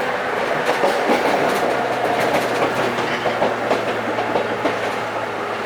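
Ex-JNR 103 series electric train car running, heard from inside: continuous rattling and clattering from the gangway plates and bellows between cars, with the wheels' clickety-clack. A low steady hum comes in about two seconds in and fades near the end.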